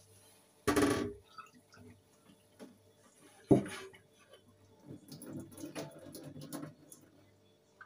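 Kitchen tap water running into a sink and dripping: a short burst near the start and a longer run in the second half, with one sharp knock about three and a half seconds in.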